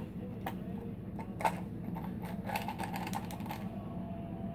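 Ice cubes knocking against the inside of a plastic cup as a cat paws at them: a run of quick, irregular clicks and taps lasting about three seconds, stopping shortly before the end.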